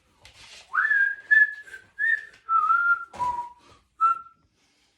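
A person whistling a short tune of about seven notes. The first note swoops up, the middle notes step downward, and it ends with one short higher note a little after four seconds.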